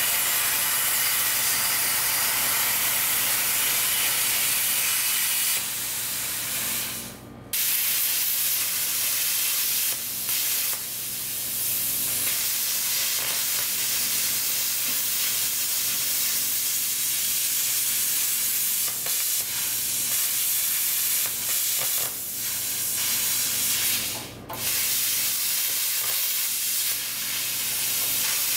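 Plasma cutter hissing steadily as it cuts through the steel front bar of a Miata's engine bay. The cut breaks off twice for a moment and starts again.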